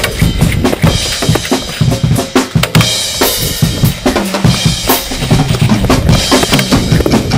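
Music with a heavy, busy drum-kit beat: bass drum and snare hits throughout.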